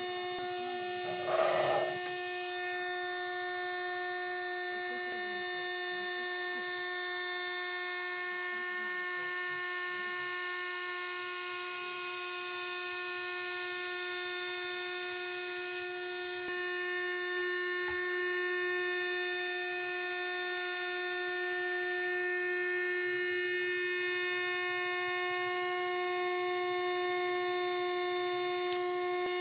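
Small electric motor of a homemade toy helicopter spinning its rotor, a steady even whine. A brief louder sound comes about a second and a half in.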